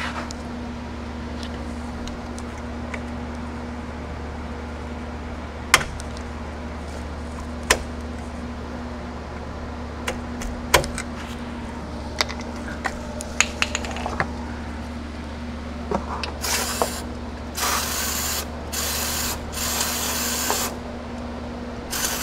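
Aerosol brake cleaner sprayed in about five short hissing bursts onto a C6 Corvette's rear parking brake shoe and adjuster wheel, flushing out grime so the adjuster can turn. The spraying follows a stretch of scattered metallic clicks and taps from handling the brake parts.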